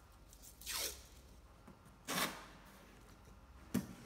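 Masking tape ripped off the roll in two short tearing swishes, the first falling in pitch, then a single sharp click near the end.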